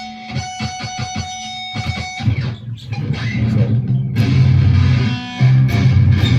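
Electric guitar tuned to drop A: a natural harmonic rings for about two seconds, then a loud, low chugging riff starts on the low strings, breaking off for a moment about five seconds in.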